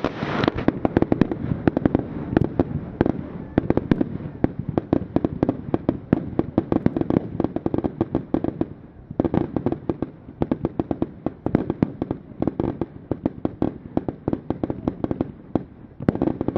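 Aerial fireworks going off in a rapid, continuous barrage of bangs and crackles, many reports a second overlapping, thinning briefly about halfway through and again near the end.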